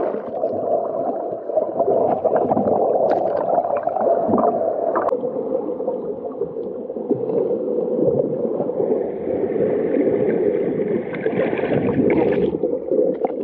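Muffled underwater rushing and gurgling as a GoPro camera is held submerged in seawater, water moving against the camera. A higher hiss joins in for a few seconds near the end.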